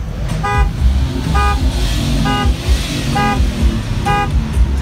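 A car horn honking in five short, evenly spaced toots, about one a second, over the low rumble of engines.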